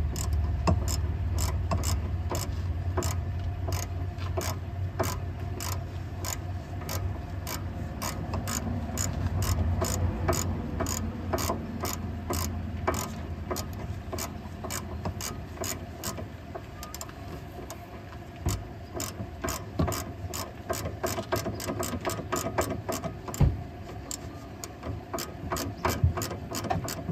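Hand ratchet clicking in short strokes as a nylon locknut is run onto the steering center link of a 1995 Mercedes-Benz W124 E320. The clicks come faster near the end, over a low hum in the first half.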